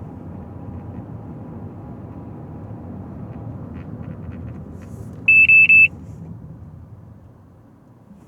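A car driving with steady road and engine rumble that dies away as it slows near the end. About five seconds in, a loud, high electronic beep sounds as three quick pulses.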